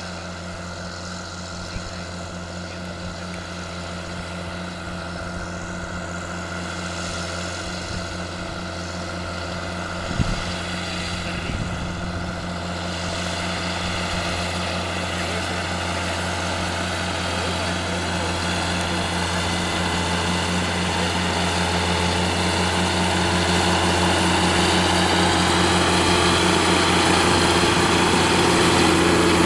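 John Deere 7830 tractor's six-cylinder diesel engine running steadily as it pulls an implement, growing louder as the tractor approaches and passes close by. A brief knock about ten seconds in.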